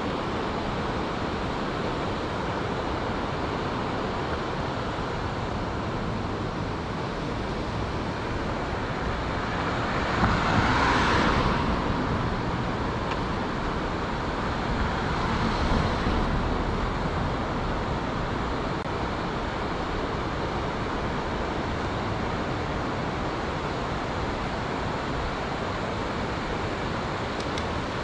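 Steady outdoor background rush, with a louder swell about ten seconds in that rises and fades over two seconds, and a smaller one a few seconds later.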